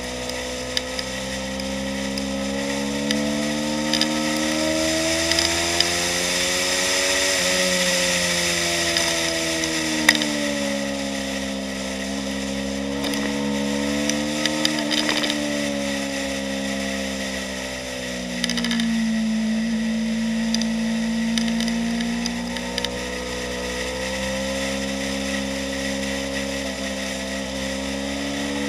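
Yamaha YZF-R3's 321 cc parallel-twin engine running hard at high revs, its pitch rising and falling as it accelerates and eases off through corners, with a drop and step back up near the middle that marks a gear change. Wind rushes over the microphone, and there are a few sharp ticks.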